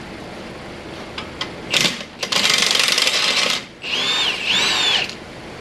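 Impact wrench running on a 17 mm bolt of the steering knuckle, loosening it: a brief burst, then a run of about a second and a half, then a last stretch in which the motor's whine rises and falls twice as the trigger is eased.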